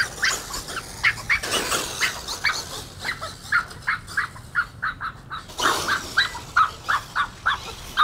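Small dog barking rapidly and repeatedly, about three or four high yaps a second, at a large electric RC monster truck driving past. Two brief rushes of noise come about one and a half seconds in and near six seconds.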